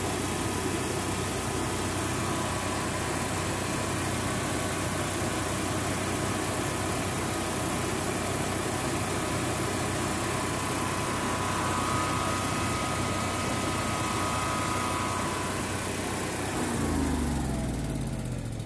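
Early Generac home standby generator's air-cooled OHVI engine running steadily, then shutting down near the end, its pitch falling as it winds down.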